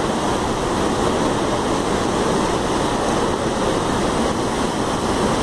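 A massive torrent of water gushing from a hillside outlet chute and crashing down into the valley: a loud, steady, unbroken roaring rush.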